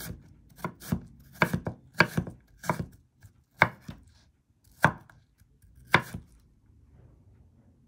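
Chef's knife slicing cucumber into thin strips on a bamboo cutting board: about ten separate cuts, each a sharp knock of the blade on the wood, coming further apart and stopping about six seconds in.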